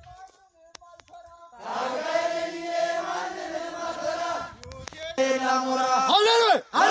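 A group of men's voices chanting together on long held notes. Near the end this gives way to loud, repeated group shouts that rise and fall in pitch, like war cries.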